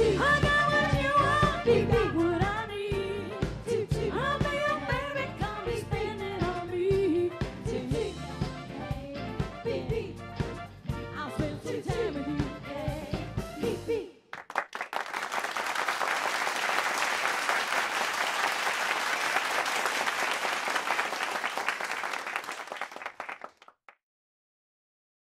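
A singer with a pop band backing, which cuts off abruptly about fourteen seconds in and gives way to audience applause. The applause fades out near the end into silence.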